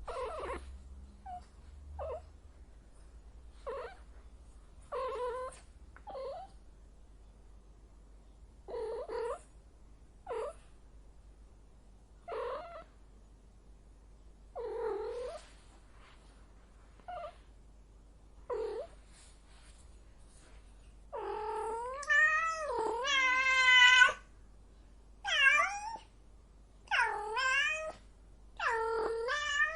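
A female cat in heat calling: a string of short meows one to two seconds apart, then, about two-thirds of the way through, louder drawn-out yowls whose pitch wavers up and down.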